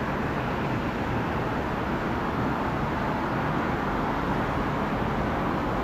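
Steady, even jet engine noise across the airfield, with a low rumble underneath and no single event standing out.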